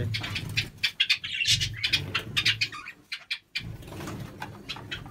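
Doves cooing, mixed with many short clicks and rustles.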